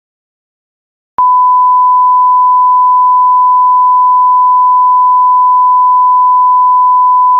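Censor bleep: a single steady beep tone laid over the speech in editing to hide what was said. It starts about a second in, after dead silence, and holds without a break.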